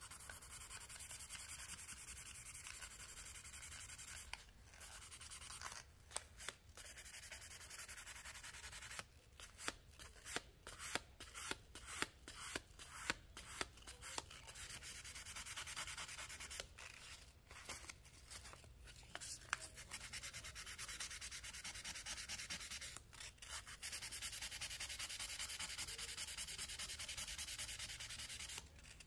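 Sandpaper rubbing over a rusty knife, sanding off the rust. The rubbing is steady, broken in the middle by a run of short, uneven strokes and brief pauses.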